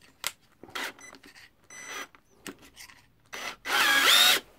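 The keyless self-locking chuck of a cordless drill is twisted by hand to change the bit: short rubbing and clicking turns, then a louder rasping ratchet for about a second near the end as the chuck is tightened.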